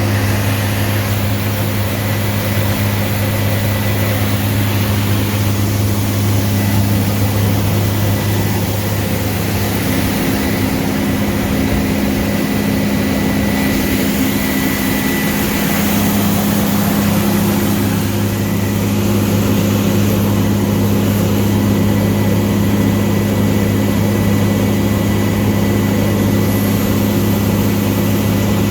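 Combine harvester's engine and threshing machinery running steadily, heard from inside the cab as a loud, even low hum with a faint high whine.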